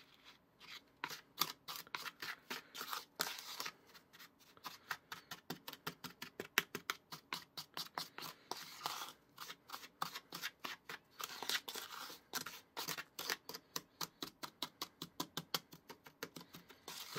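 Wooden spoon stirring dry chocolate cake mix in a small plastic bowl: a quick run of short scraping strokes, several a second.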